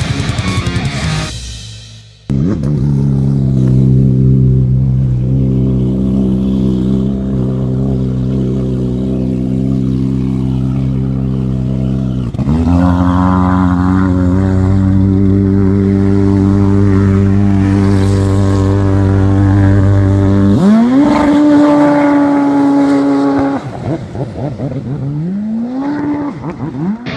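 Jet ski engine running at speed, a steady drone whose pitch steps up about halfway through, then climbs sharply twice near the end as it accelerates. Rock music fades out at the start.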